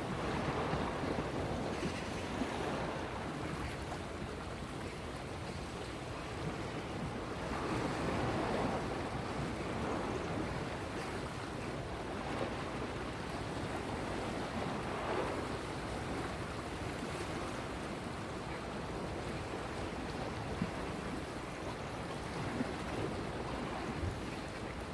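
Ocean surf: a steady rush of waves washing in, swelling and easing now and then.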